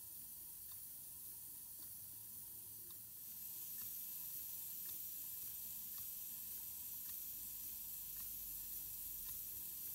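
Stuart Turner Victoria model single-cylinder horizontal mill engine running, giving a soft steady hiss that grows louder about three seconds in, with a faint regular tick about once a second.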